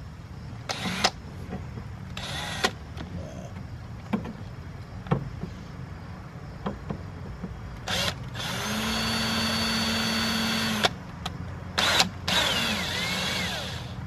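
Electric drill pre-drilling screw holes to mount a car side skirt. A few short trigger blips come first, then a steady run of about two and a half seconds, then another run that winds down with a falling pitch.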